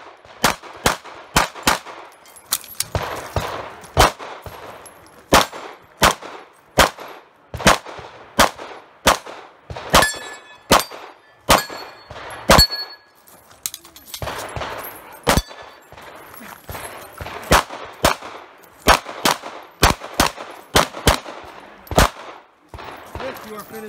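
Rapid pistol fire from a Tanfoglio Stock 2: dozens of sharp shots in quick succession, often in pairs, broken by short pauses. Between about ten and thirteen seconds in, a few shots are followed by a ringing metallic ding from steel targets being hit.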